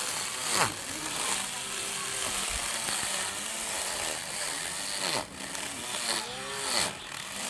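Small electric grass trimmer running, its motor whirring and the spinning cutting line hissing through grass along a curb edge. Its pitch swoops down and back up a few times.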